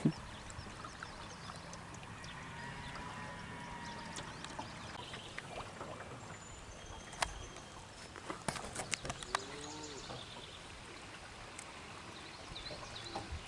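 Riverbank ambience: a steady rush of flowing river water, with a few scattered sharp clicks and ticks about halfway through and a brief faint call.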